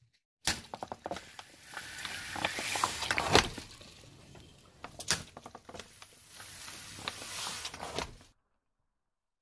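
Plastic bottles of coloured liquid being flattened under a car tyre: crackling, crunching plastic and a hiss of liquid squirting out. There is a loud pop about three and a half seconds in and another sharp crack around five seconds. It begins half a second in and stops about a second before the end.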